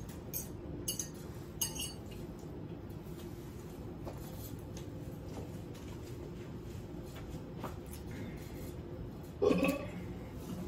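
A few light clinks of cutlery and glass in the first two seconds, then a quiet stretch, then a loud burp near the end.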